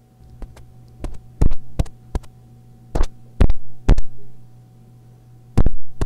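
Fingertip tapping on a small external microphone (Edutige ETM-001) to test that it records through the adapters: about ten sharp, irregular taps, several of them very loud, over a steady low hum.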